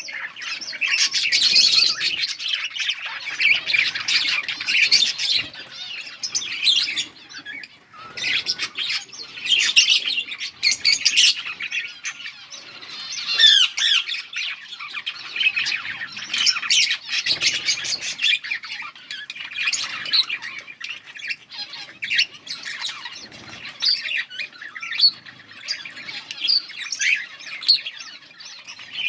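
Budgerigars chattering and chirping continuously, a dense mix of warbles, chirps and short squawks from several birds.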